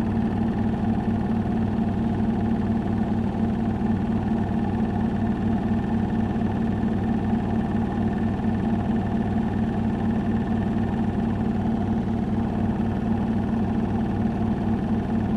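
Samsung Ecobubble washing machine with a digital inverter motor spinning at its 1200 rpm stage: a steady hum with a fine rapid pulsing.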